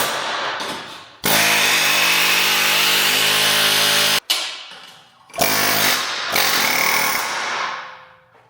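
Pneumatic air chisel hammering on the ground-flush rivets of a steel truck frame to knock them loose, run in bursts: a short blip at the start, a run of about three seconds, then another of about two and a half seconds.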